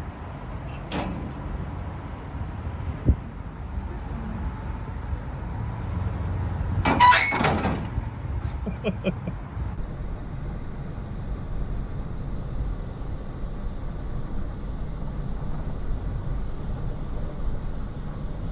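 Steady low vehicle rumble. About seven seconds in, a sudden loud harsh burst lasts about a second. From about ten seconds on, steady engine and road noise is heard from inside a moving car.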